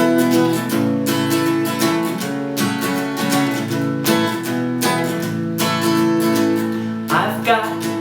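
Music: acoustic guitar strumming chords in a steady rhythm, a children's song intro.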